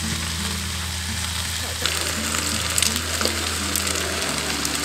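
Steaks sizzling in a hot frying pan on a portable gas stove, the crackle and spatter getting louder about two seconds in.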